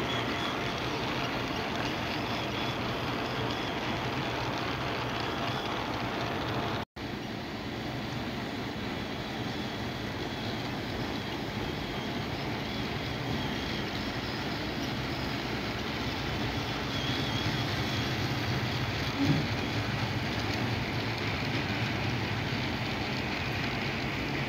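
HO scale model track-maintenance train running along the layout's track, a steady rolling noise of small wheels on rail. The sound drops out for an instant about seven seconds in, and a single short click comes later on.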